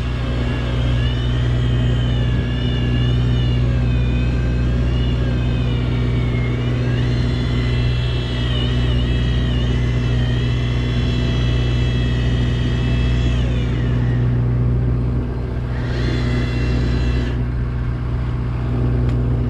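Fishing boat's engine running with a steady low hum. A high, wavering whine rides over it and fades out a little after halfway, then comes back briefly near the end.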